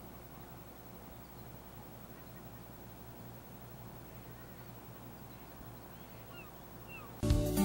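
Faint outdoor waterfront ambience: a steady low rumble with a few short, faint bird calls. About seven seconds in, loud music with guitar and drums starts abruptly.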